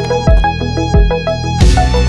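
Background music with a steady drum beat and a stepping melody over a bass line; it becomes fuller and brighter near the end.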